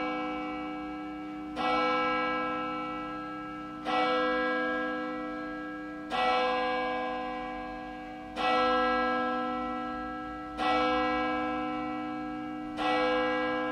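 A single church bell tolling slowly: six strokes about two seconds apart, each ringing on and fading before the next.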